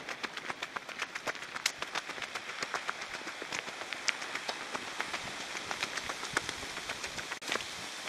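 Footsteps crunching on a trail of dry fallen leaves and gravel, a close, irregular run of crackles and clicks.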